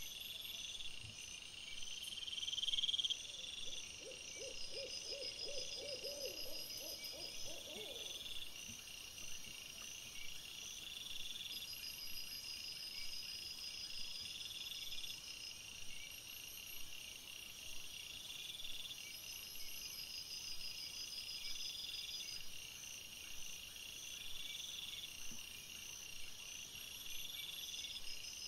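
Night-time insect chorus: steady high trilling, with a longer call repeating about every two and a half seconds. Between about four and eight seconds in, a short run of quick, low pulsed calls from an animal sounds over it.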